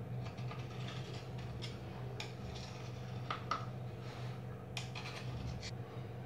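Light scraping and a few sharp clicks of a knife against a steel idli mould tray as steamed idlis are eased out and set on a plate. The loudest click comes about halfway through, over a steady low hum.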